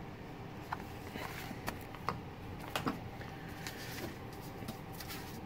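Paper being handled: pages of an old printed booklet turning and papers being moved on a stack. It comes as a scatter of short rustles and light taps, about eight in all, over faint steady room noise.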